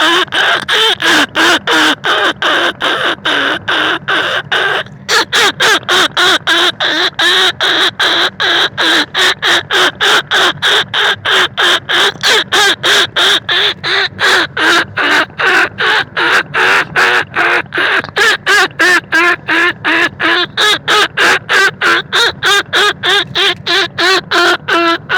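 Rat-calling lure sound: fast, evenly repeated squeaking, squawking calls, about three a second, used to draw rice-field rats and bandicoot rats in for hunting. The calls pause briefly about five seconds in.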